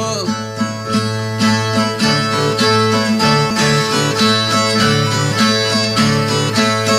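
Brazilian ten-string viola plucked in a repeating rhythmic figure over a steady bass note: the instrumental interlude between sung verses of an improvised repente.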